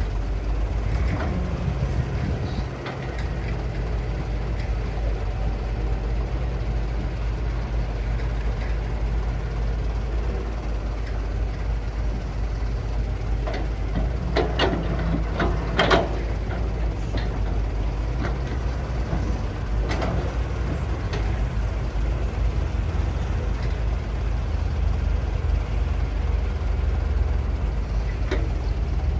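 Heavy diesel machinery of an excavator loading dirt into a dump truck, with engines running in a steady low drone. A cluster of clanks and scrapes comes about halfway through, and another a few seconds later.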